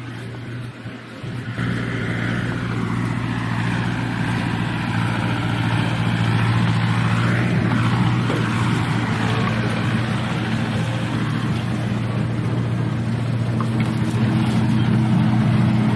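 Farm tractor engine running steadily at working speed while it pulls a hay baler, growing louder about a second and a half in.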